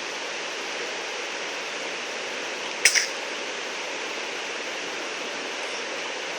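A single short, sharp sneeze about three seconds in, over a steady background hiss.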